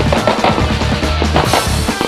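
Music track with a steady, fast drum beat, about four hits a second, over sustained bass notes.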